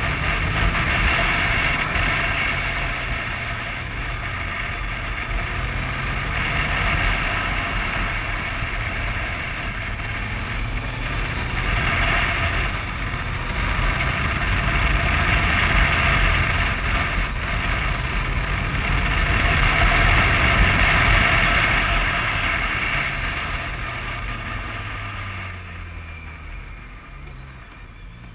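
Wind rushing over a helmet-mounted camera on a moving BMW motorcycle, with the engine running underneath. The rush swells and eases several times, then drops away near the end as the bike slows.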